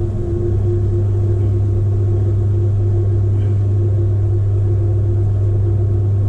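Electric potter's wheel motor running at steady speed: a constant low hum with a fainter higher tone above it.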